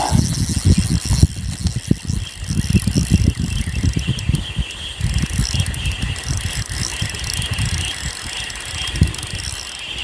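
Fishing reel being cranked steadily, a mechanical whirring, as a hooked juvenile hairtail pulls against the line. Loud, irregular low rumbling runs under it.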